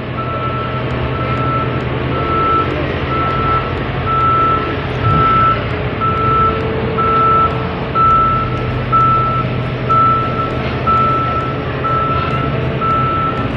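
Reversing alarm of a heavy construction vehicle beeping steadily, about one beep a second, over the vehicle's diesel engine running.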